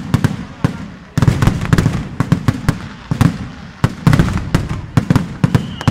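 A barrage of firecrackers: dozens of sharp bangs and cracks going off in rapid, irregular succession. They come in waves, with a brief lull about a second in.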